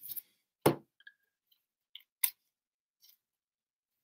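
A trading card being handled and slid into a clear plastic sleeve: a few short sharp clicks and taps of card and plastic, the loudest about two-thirds of a second in and another just after two seconds, with fainter ticks between.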